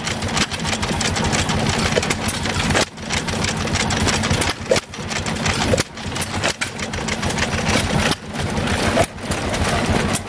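Several antique flywheel stationary gas engines running together, a fast steady mechanical clatter with a few brief dips in loudness.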